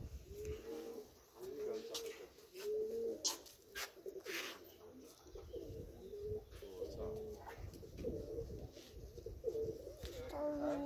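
Domestic pigeons cooing over and over, a low wavering coo about once a second, with a few sharp clicks in between.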